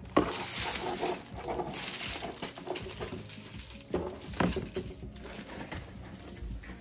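Tissue paper rustling and a cellophane-wrapped paper pad crinkling as they are handled and lifted out of a box, in an irregular run of crinkles and soft knocks.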